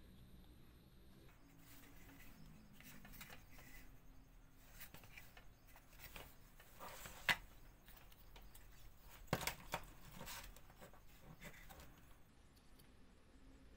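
Small wooden toy parts being handled and fitted together by hand: quiet rubbing and scraping with a few sharp wooden clicks and taps, the loudest about seven seconds in and again a couple of seconds later.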